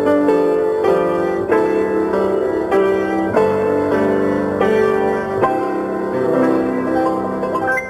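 Piano music accompanying a silent film: a steady, chord-filled tune with a clear beat. It stops right at the end, its last notes dying away.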